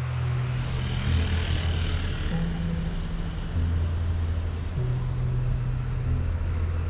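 City street traffic noise under background music of low sustained notes that move to a new pitch about every second and a quarter.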